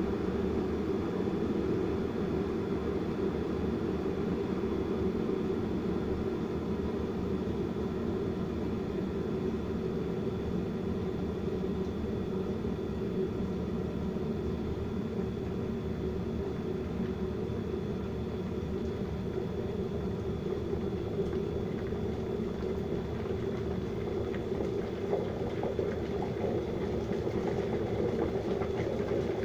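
Vitek VT-1138 electric kettle heating water toward the boil: a steady rumbling hiss that grows a little louder near the end.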